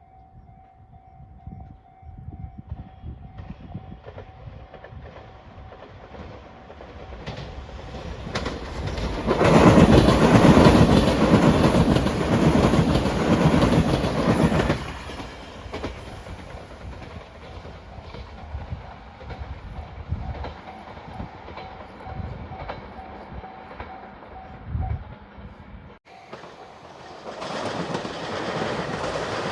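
A Shiokaze limited express electric train passes over a railway level crossing, its wheels clattering over the rail joints. The sound is loudest for about five seconds near the middle, while the crossing's warning bell rings steadily. After an abrupt cut near the end, another train is heard approaching.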